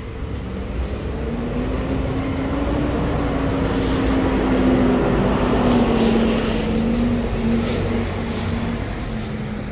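Motor vehicle engine passing nearby: a steady hum that grows louder to a peak about six seconds in, then fades.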